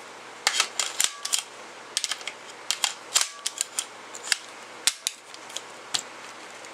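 Irregular sharp clicks and knocks, about fifteen, from an AR-15 rifle and its loaded high-capacity magazines being handled and moved.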